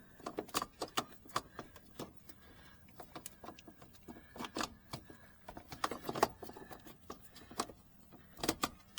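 Irregular clicks, taps and light rattles of a circuit breaker and its wires being handled and hooked into a Square D electrical panel.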